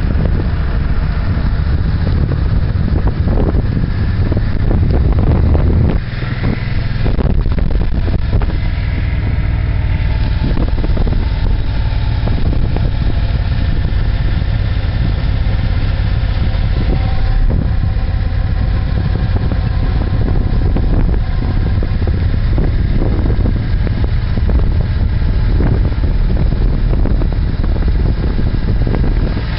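Suzuki Boulevard cruiser motorcycle riding along at speed, its engine running steadily under a rush of road and wind noise picked up on the bike.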